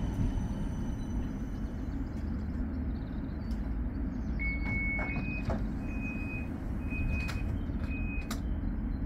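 Steady low rumble of a tram, with a run of high electronic beeps from about halfway: one longer tone, then four short beeps about a second apart, with a few sharp knocks among them.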